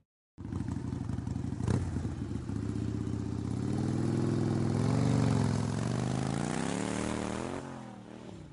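An engine starting up and running, then revved up and down: the pitch rises, dips and rises once more before it falls away and fades out near the end. A single sharp click comes about a second and a half in.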